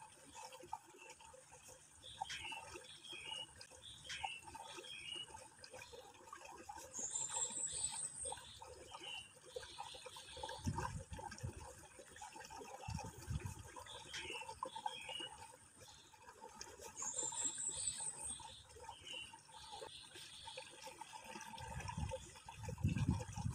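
Birds chirping in short scattered phrases, twice with a quick rising run of high notes, over a steady thin high whine and a soft hiss; a few low thuds.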